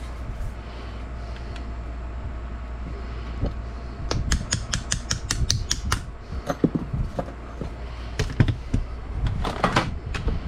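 Metal parts of an AR-type rifle clicking and clinking as it is handled during a teardown, over a low steady hum. About four seconds in comes a quick run of about a dozen sharp clicks, then scattered knocks and a short cluster of clicks near the end.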